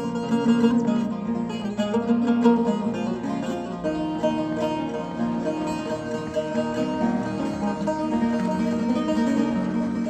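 Kurdish bzq, a long-necked plucked lute, playing a steady run of quick plucked notes.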